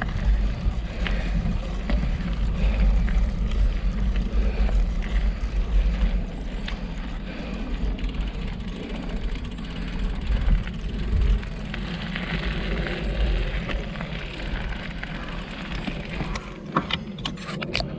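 A mountain bike rolling along a gravel forest trail, heard through a handlebar-mounted action camera: steady tyre and rattle noise over a heavy low rumble. A few sharp clicks come near the end.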